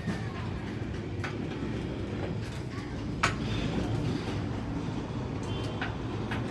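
Steady low vehicle rumble with a few sharp knocks, the loudest about three seconds in.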